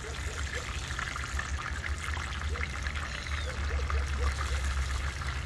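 Steak sizzling in hot oil in a frying pan: a steady sizzle with fine crackling throughout.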